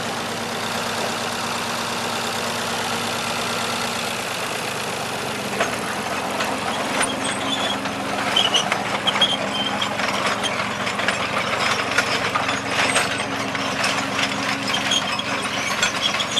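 Heavy machine's engine running at a steady pitch. From about five seconds in, a busy clatter of sharp knocks and clanks joins it.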